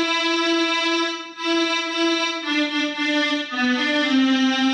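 Mini electronic keyboard played by hand: a slow melody of long held notes, one at a time, with a brief break about a second in.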